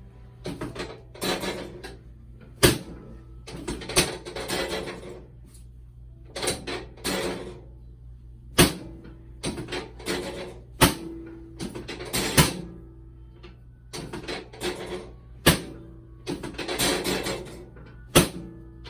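Hands-on chiropractic adjustment on a treatment table: about seven sharp knocks and thumps at irregular intervals, among short bursts of rustling and shifting, over a steady low hum.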